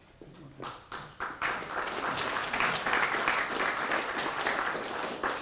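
Audience applauding: a few scattered claps at first, building to steady clapping from about a second and a half in, then thinning near the end.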